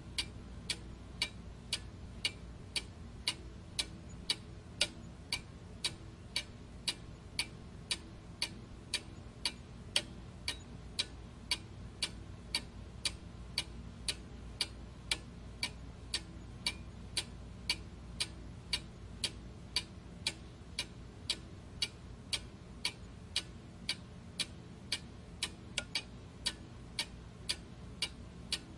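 Steady, evenly spaced ticking, about two ticks a second, over a faint low hum.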